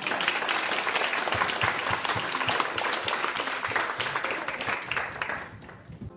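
Applause: many hands clapping, starting abruptly and fading out near the end.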